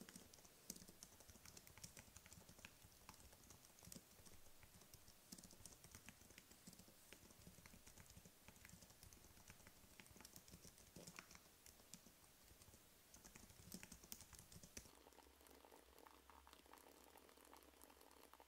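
Typing on a slim, low-profile white keyboard: a faint, quick, irregular patter of soft key clicks.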